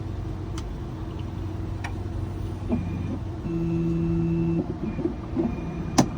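A computerized key-cutting machine runs with a steady hum and a few light clicks, and its motor whirs briefly about three and a half seconds in. Near the end comes a sharp snap: the machine breaking its tip stop.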